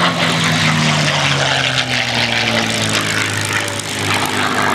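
Supermarine Spitfire's Rolls-Royce Merlin V12 running on the ground as it warms up, the propeller turning. A steady engine drone with a pitch that falls over the first second or two, then holds level.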